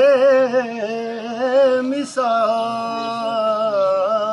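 A man singing Urdu devotional verse unaccompanied, drawing out long vowels: the first note wavers and twists with ornaments, and a second note starting about two seconds in is held steadier.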